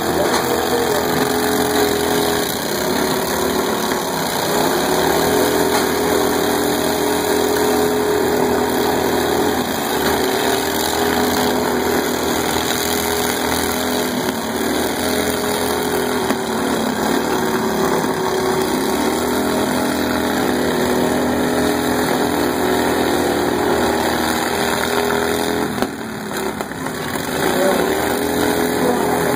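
Riding lawn mower engines running together, their revs wavering up and down as the mowers shove against each other. The sound dips briefly near the end.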